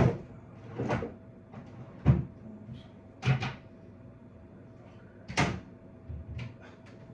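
Cupboard doors and drawers being opened and shut while someone rummages for something: about half a dozen separate knocks and bumps, a second or more apart.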